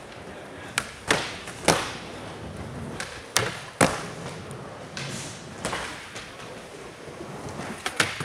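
Skateboard wheels rolling on a concrete floor, broken by sharp clacks and thuds of boards hitting the ground and ledges, several in quick succession in the first four seconds and another near the end.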